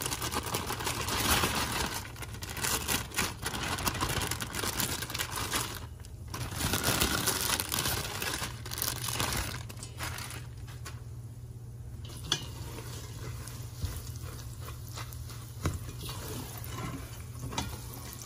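Mini marshmallows poured from a crinkling plastic bag into a steel pot of melted butter, rustling and tumbling in over about the first ten seconds; after that the sound drops to a quieter steady hiss.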